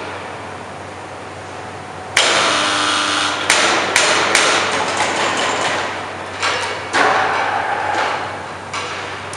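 Steel ladle bail and crane chain clanking and scraping as the bail is lowered against the ladle's friction brake. A sudden loud clank comes about two seconds in, followed by sharp metal knocks and another loud clank near the end.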